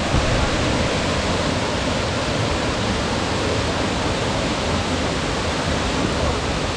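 Waterfall falling into a pool, a steady rushing roar of water.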